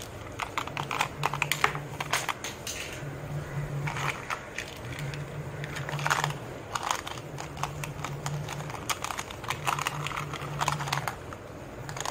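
Hard plastic toy pieces clicking and clattering as they are handled: a plastic fries holder and its plastic fries knocking together in quick, irregular taps. A low hum comes and goes in regular pulses underneath.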